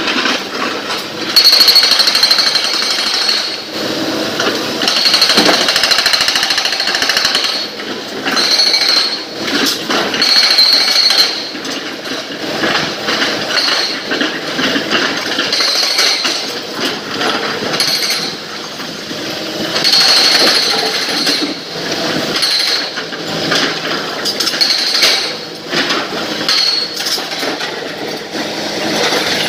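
A SANY crawler excavator is working and loading blasted rock into a steel tipper body. Rocks clatter and bang as the bucket digs and dumps, over the machine's engine and hydraulics. A high whine rises and falls in repeated bursts.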